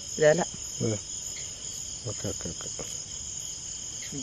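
Steady chorus of crickets and other insects, a shrill layered trill that holds on without a break.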